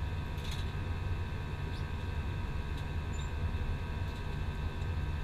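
Steady in-flight cabin noise of an Airbus A320: a deep engine and airflow rumble with steady whining tones above it, and a few faint ticks.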